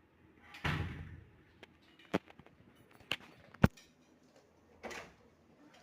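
A door moving under a hydraulic door closer: a short swish of movement, a few clicks, then a sharp loud click about three and a half seconds in as it shuts.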